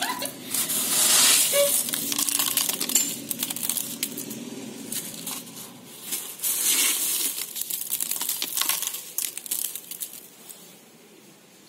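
Hailstones crunching and rattling against one another as a hand pushes through a pile of them, in irregular bursts of small clicks. The sound dies away near the end.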